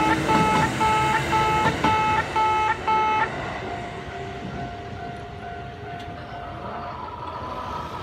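The in-station level crossing's distinctive electronic alarm sounds through its loudspeaker horns: a loud repeated tone, about two beeps a second, over the rumble of a passing Kintetsu train. The beeping stops abruptly about three seconds in as the train clears, leaving a quieter steady tone.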